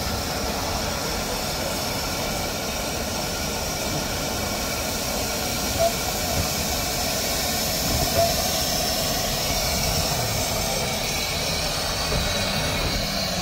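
15-inch gauge miniature steam locomotive standing at the platform, hissing steam steadily, with a couple of brief knocks about six and eight seconds in.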